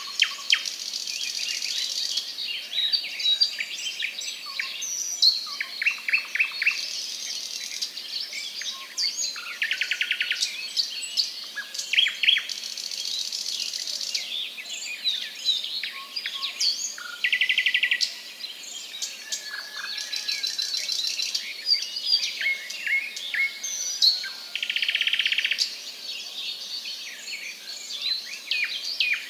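Many birds chirping and calling together, with short high chirps and sweeps throughout and a buzzy trill about a second long every few seconds.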